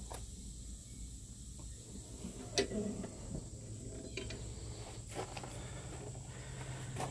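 A few sharp metal knocks and clicks from the steel firebox door and handles of an Oklahoma Joe's Highland offset smoker being worked; the loudest, about two and a half seconds in, is a clank with a short ring as the door shuts. A steady low hum runs underneath.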